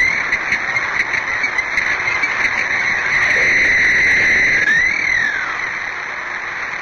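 Whale calls underwater: a steady high-pitched drone with a call that slides up and then back down about five seconds in.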